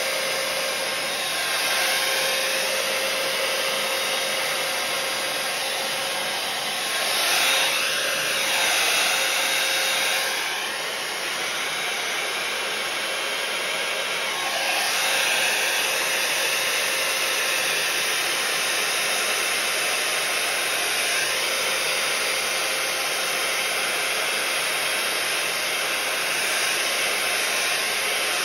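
Handheld hair dryer blowing steadily, used to push wet acrylic pour paint across a canvas. Its rush of air shifts in tone and swells twice, around a quarter and half way through, as it is moved over the surface.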